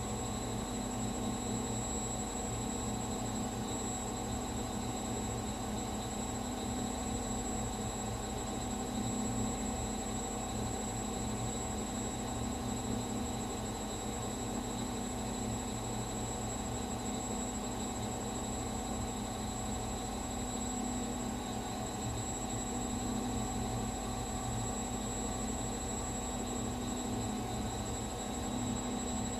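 Gorenje washing machine on its spin cycle, drum and motor running at a steady speed: a constant hum with a thin high-pitched whine above it.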